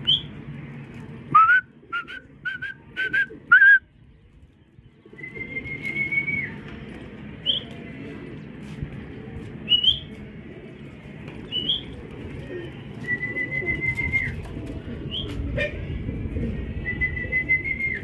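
A series of high, pure whistled notes: about five short rising whistles in quick succession near the start, the loudest part, then long held whistles that dip at the end, with short upward flicks between. Under them runs a steady low background noise.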